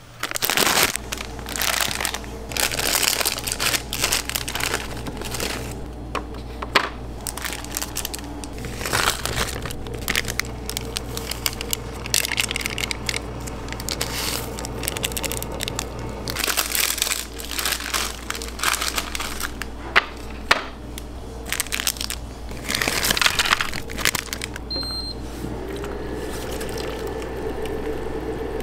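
Plastic instant-noodle wrapper and seasoning sachet crinkling and crackling in irregular bursts as the packet is handled, opened and emptied into a paper bowl. Near the end there is a short electronic beep, then hot water from the ramen machine's spout starts pouring into the bowl with a slowly rising tone.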